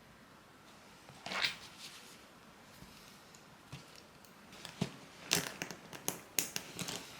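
Plastic parcel packaging being handled and opened by hand: one crinkling rustle about a second in, then a run of short crinkles and light taps in the second half.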